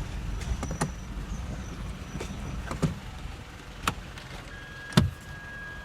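Car squeaking while driving: short sharp creaks and clicks every second or so over a low road rumble, the loudest about five seconds in.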